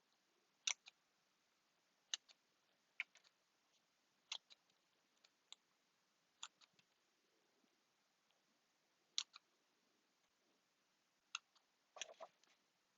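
Scissors snipping: short, sharp clicks of the blades closing, one every second or two, with a quick run of snips near the end.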